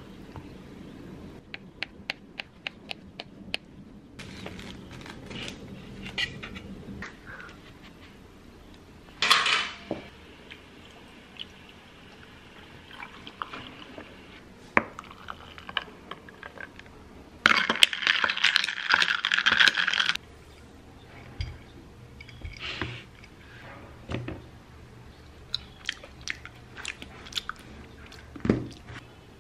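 Kitchen food-prep sounds: a knife clicking against a wooden cutting board as an avocado is sliced, and a drink poured from a plastic jug into a glass for a few seconds near the middle. Near the end, cutlery clinks on a plate.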